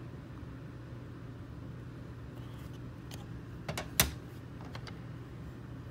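Hard plastic PSA graded-card slabs clicking against one another as a slab is set down on a stack: a few light clicks, then one sharp clack about four seconds in, over a faint steady room hum.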